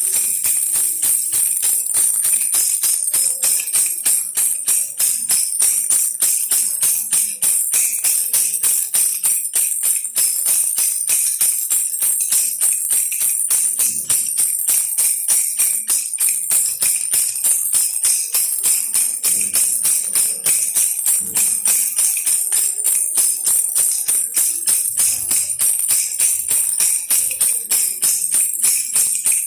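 Baby rattle toy shaken without pause: a continuous, rapid, high-pitched jingling rattle.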